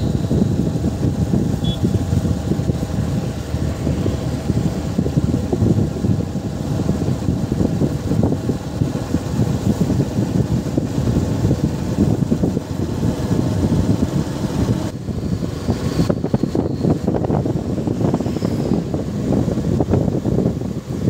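Wind buffeting the microphone of a motorcycle moving at road speed, with the engine and tyre noise running underneath.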